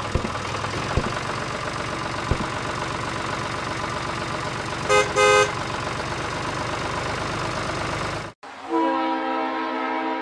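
Small electric motor of a DIY toy tractor running with a steady buzz and hiss, with two short horn beeps about five seconds in. The sound cuts off near the end, and a toy train's horn then sounds one long, steady note.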